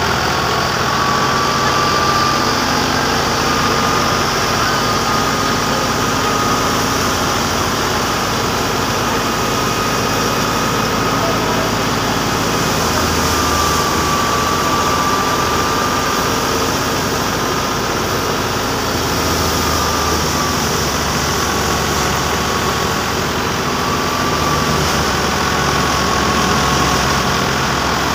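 Tractor-driven threshing machine running steadily: a constant loud drone of the tractor engine and the spinning thresher drum, with a thin high whine that drifts slightly up and down in pitch.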